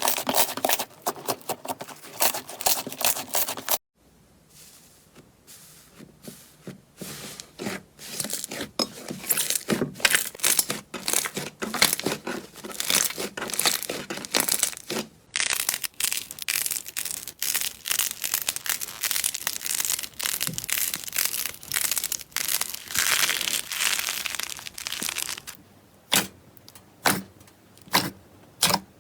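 Slime being squeezed, stretched and pulled apart, giving dense crackling, sticky pops and tearing, in several short segments cut together; a cut about four seconds in, and sparser single pops near the end.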